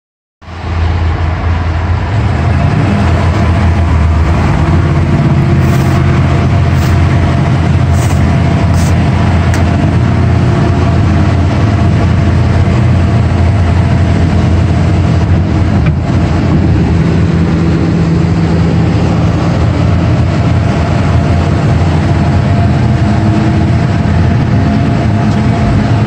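Tracked excavator's diesel engine running steadily, heard from inside the operator's cab as a loud, even low drone.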